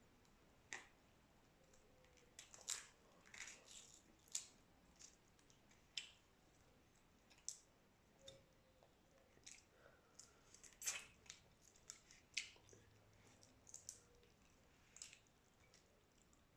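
Someone eating boiled shrimps: faint, irregular crisp clicks and crunches, one every second or so.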